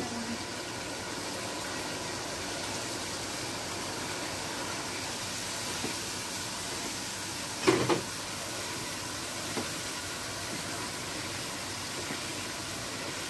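Onion-almond korma masala with yogurt sizzling steadily in oil in a nonstick wok while a plastic spatula stirs it. The spatula knocks against the pan briefly about eight seconds in.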